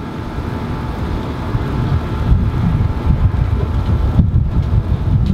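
Wind buffeting the microphone: a gusty low rumble that builds over the first couple of seconds and then stays strong and uneven.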